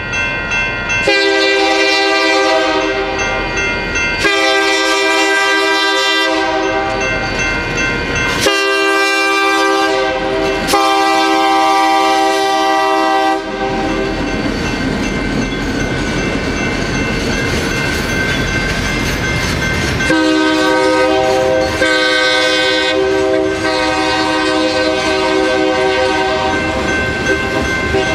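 Freight locomotive air horn sounding the grade-crossing signal: two long blasts, a short one and a long one. Then comes the rumble and clatter of the train passing over the crossing, and about twenty seconds in another long horn blast over the passing cars.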